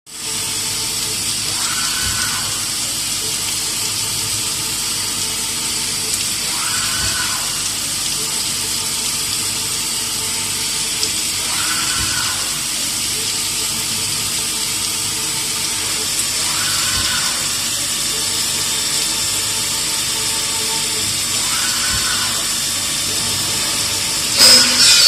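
Fermat WFC 10 CNC horizontal boring mill running a machining cycle with coolant flowing: a steady hiss of coolant and spindle, with a short tone that comes back about every five seconds. A louder, sharper noise rises near the end.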